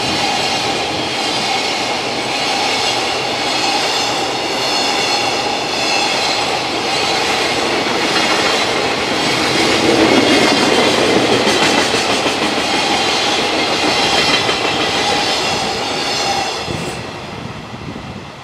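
Container freight train passing close by: steady loud rush of wheels on rail, with clickety-clack over the joints and a faint steady whine running through it. Near the end the last wagon goes by and the sound falls away.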